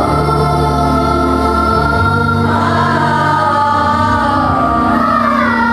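Children's choir singing long held notes in several voices, over a steady low accompaniment.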